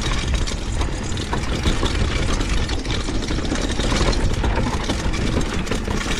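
Mountain bike rolling fast down a dry dirt trail: steady tyre and wind rumble with constant rattling and clattering from the bike over rough ground.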